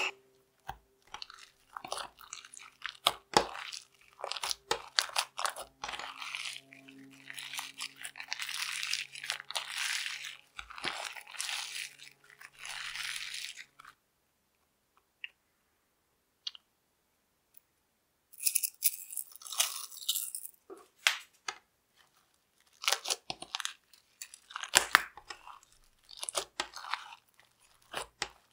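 Peel-off face mask slime being kneaded and squished by hand, giving sticky, crackly popping and squelching. It stops for a few seconds in the middle, with only a couple of faint clicks, then the squishing starts again.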